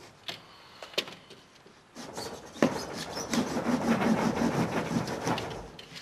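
Scratchy rubbing on the foam face of an insulated concrete form as lines are marked on it, starting about two seconds in and fading near the end, after a couple of light clicks.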